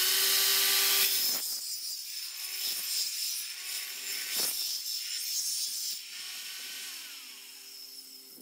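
Ryobi tile wet saw running with a high whine, its diamond blade grinding through a mesh-backed sheet of penny tiles as the sheet is pushed past it. The cutting noise surges several times and is quieter from about six seconds in.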